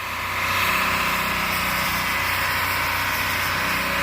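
Mazda MPV burnout: the engine held at high revs while the drive tyres spin and screech on the pavement, a loud, steady sound that swells over the first half second.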